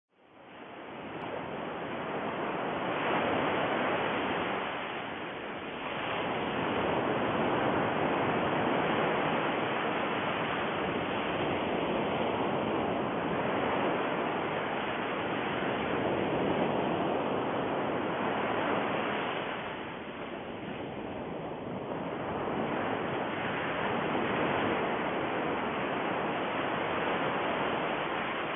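A steady rushing noise with no tone or rhythm, swelling and easing slowly every several seconds, with softer dips about five seconds in and again about twenty seconds in.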